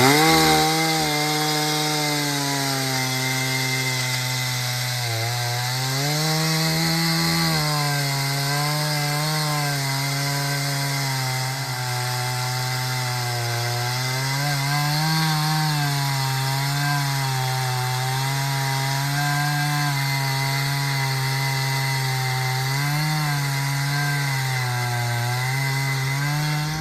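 Homelite 340 two-stroke chainsaw cutting firewood under load, the engine speeding up right at the start and then holding a steady pitch that sags and picks up again several times through the cut. Its carburettor tuning is close but, by the owner's account, still needs slight tweaking.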